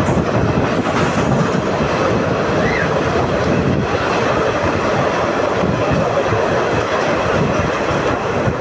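Passenger train running on the Kasara–Igatpuri ghat climb, heard from inside a second-class coach: a steady, loud rumble and rattle of wheels on the track.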